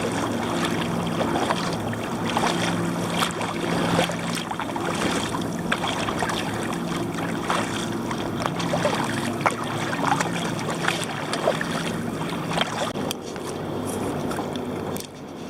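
Water slapping and splashing against a kayak's hull, with wind on the microphone, over the steady drone of a passing racing boat's engine that fades near the end.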